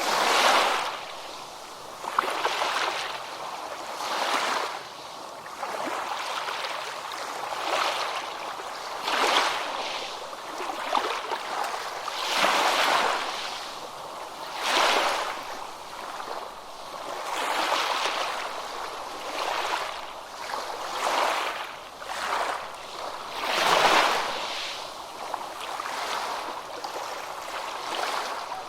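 Ocean waves breaking and washing up a beach, the surf rising and falling in swells every couple of seconds, with a few louder breakers.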